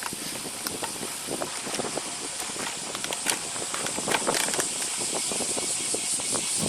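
Riding noise on a road bike: a steady rush of wind and tyre noise with scattered small clicks and crackles.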